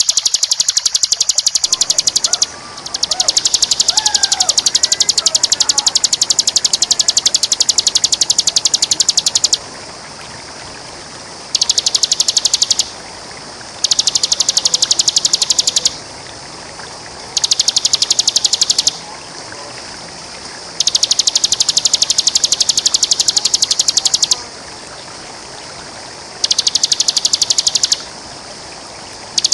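Bar-winged prinia (ciblek) singing its continuous rapid high trill in long bouts. The bouts last from about one to seven seconds, with gaps of one to two seconds between them. A steady rush of waterfall water and faint calls of other birds run underneath.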